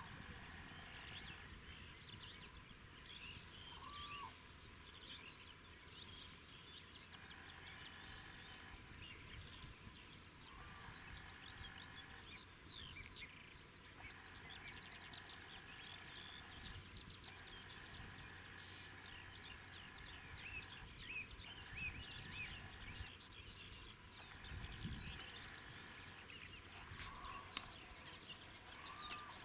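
Faint chorus of songbirds chirping and singing, with many short quick calls throughout and a steady trill that starts and stops every second or two. A soft low rumble near the end.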